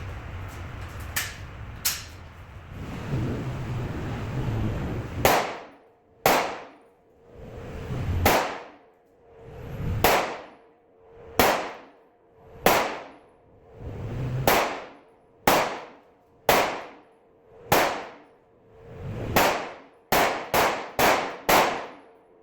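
9mm Glock 17 pistol in a Micro Roni G3 chassis firing about fifteen shots, a second or two apart, then a quick string of four or five near the end, each crack ringing out afterwards. Two fainter shots come first.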